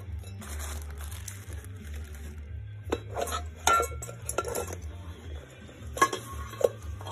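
Large electrolytic power-supply capacitors and their mounting clamps being handled and set down: a cluster of clinks and knocks with short metallic ringing in the middle, and two more near the end, over a low steady hum.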